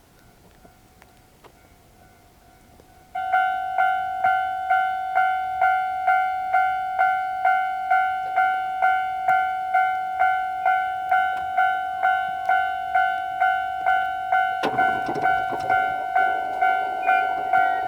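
Japanese railway level-crossing warning bell starting abruptly about three seconds in and ringing steadily: a two-pitch electronic ding repeating about twice a second, warning of an approaching train. Near the end a broad rumbling noise joins underneath.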